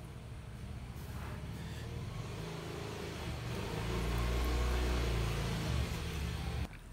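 A motor vehicle's engine running, getting louder for a few seconds and then cutting off suddenly near the end.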